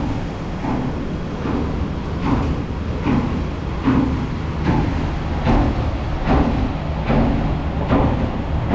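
Footsteps walking at a steady pace, about one step every 0.8 s, over a steady low rumble of street noise.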